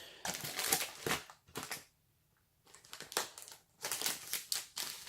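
Plastic snack wrappers crinkling as packets are handled, in irregular rustling bursts with a short pause about two seconds in.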